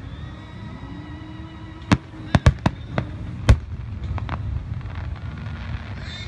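Aerial fireworks shells bursting: about five sharp bangs in quick succession from about two seconds in, the loudest at about three and a half seconds, followed by a few fainter pops.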